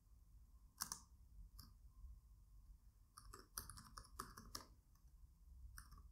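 Faint computer keyboard keystrokes: scattered clicks of typing, a few single ones and then a quick run of several keys a little past the middle.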